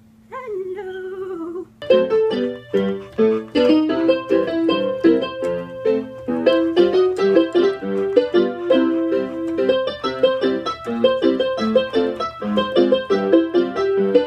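Portable electronic keyboard played with a lively run of melody and chords, starting about two seconds in.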